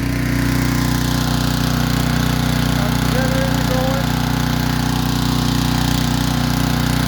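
A small engine running steadily at a constant speed, a loud even hum. A few short warbling whistled notes come over it about three and four seconds in.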